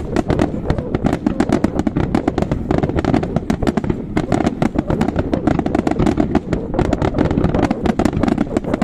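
Aerial fireworks bursting in a dense barrage: rapid, irregular bangs and crackling from many shells going off at once, with no pause.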